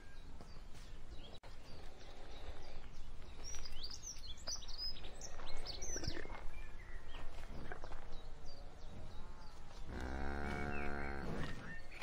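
Cattle grazing in a pasture, with faint small tearing and chewing clicks over a steady outdoor background. Small birds chirp around the middle, and a cow moos once near the end, a low call lasting about a second and a half.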